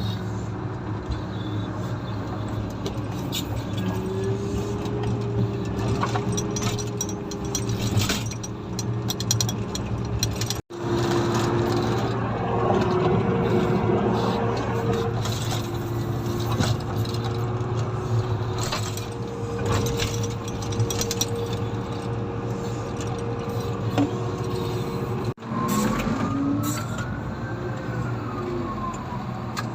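Komatsu motor grader's diesel engine running steadily, with higher whining tones that shift in pitch. The sound drops out sharply twice, about a third of the way in and near the end.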